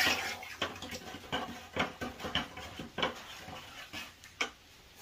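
A sharp clank at the start, then irregular light knocks and clicks, roughly two a second, stopping about four and a half seconds in: steel blacksmith's tools being handled and set down.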